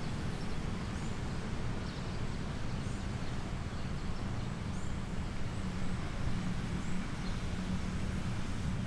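Outdoor ambience: a steady low rumble of distant traffic, with faint, brief bird chirps now and then.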